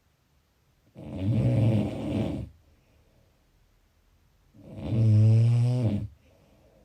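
Snoring: two long, loud snores, about a second in and about four and a half seconds in, each with a low, buzzing pitch. The second snore is slightly louder.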